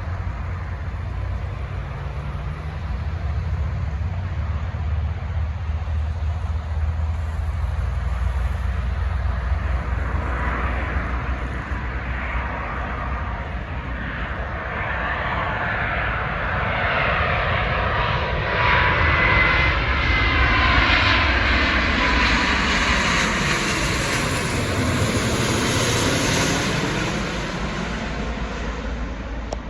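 Jet airliner flying past, its engine noise building from about ten seconds in to a peak around twenty to twenty-six seconds in, with a high whine over the rush, then easing slightly.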